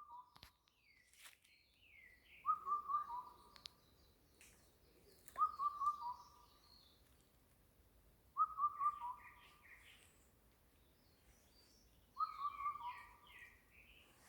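Wild birds singing: one bird repeats a short, stuttering whistled phrase about every three seconds, four times in all. Each phrase is followed by higher chirps from other birds.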